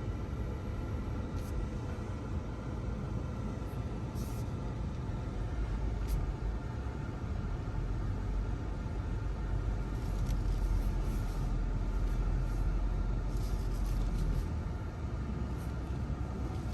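Low road and tyre rumble inside a moving Polestar electric car's cabin, with faint, irregular sharp clicks from the micro switches in the accelerator pedal.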